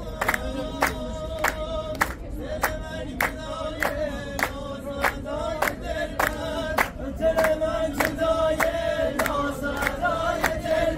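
A crowd of people singing together as a group, with steady rhythmic hand-clapping at a little under two claps a second.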